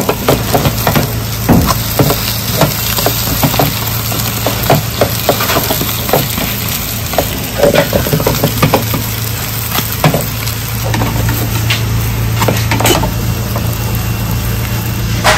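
Green-onion pancakes (pajeon) sizzling in oil in two frying pans, with frequent short clicks and knocks of the pans and utensils being handled, over a steady low hum. Near the end a pancake is slid out of its pan onto a plate.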